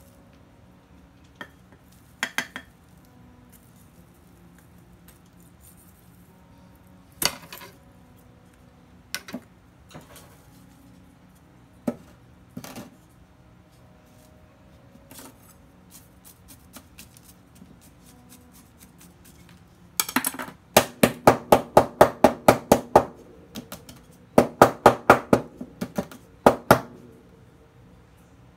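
Potting work on a terracotta pot with a scoop and soil mix: scattered clinks, knocks and scrapes. Near the end come two runs of quick, sharp taps, about four or five a second, the loudest sounds.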